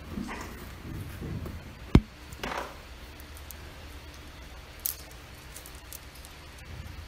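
Low room rumble with faint irregular noises, one sharp click about two seconds in and a softer click near five seconds.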